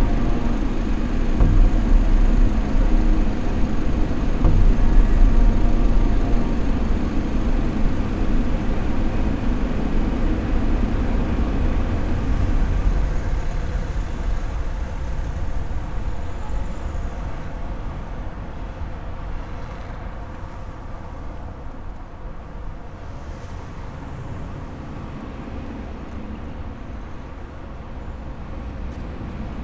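Steady low vehicle rumble, loud at first and slowly fading.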